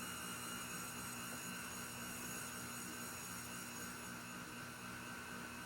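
Electric stand mixer running steadily at a raised speed, its motor giving an even hum while it mixes flour into creamed butter and sugar.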